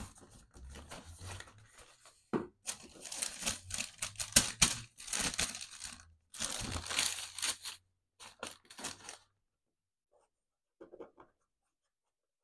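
Hands opening a cardboard shoebox and unwrapping the tissue paper inside: a run of crisp paper rustling and crinkling, loudest in the middle, then fading to a few faint handling sounds near the end.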